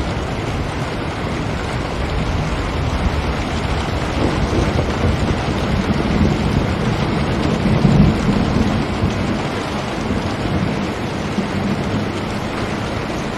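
Steady rain falling against a window, with a low rumble swelling from about six seconds in and fading again by about ten.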